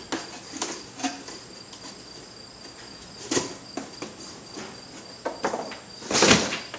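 Packaging being handled: scattered light knocks and rustles of the box and a helmet bag, with one louder rustle near the end. Crickets chirp in the background.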